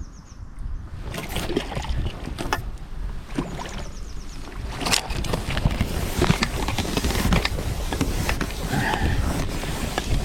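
Water splashing and sloshing irregularly as a hooked ghost mirror carp thrashes at the surface, over a steady low rumble of wind on the microphone.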